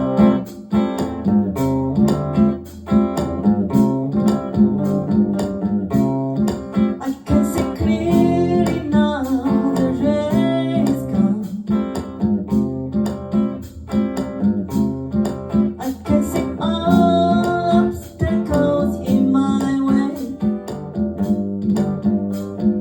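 Acoustic guitar music with a steady strummed rhythm, a melody line rising and falling over it.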